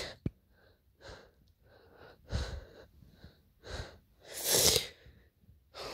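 A person's breathing close to the microphone: several short, noisy breaths or huffs about a second apart, the strongest one a little before the end.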